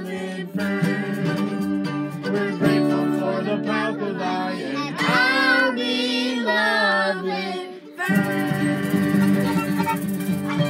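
Acoustic guitar strumming with a violin and children's singing voices, the closing bars of a folk-style song. About eight seconds in there is a brief break, then a final fuller strummed passage.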